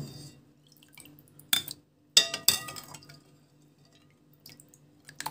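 Kitchen clatter as a pot of soaked fava beans is handled: a few sharp clinks, the loudest pair about two to three seconds in ringing briefly, over a faint steady low hum.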